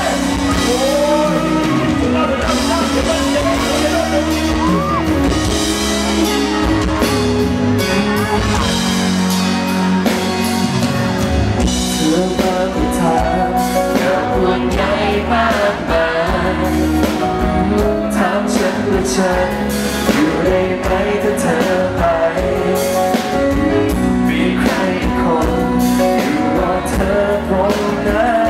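A live pop band playing with a male lead singer: his sung melody over electric guitar, bass and a steady drum beat.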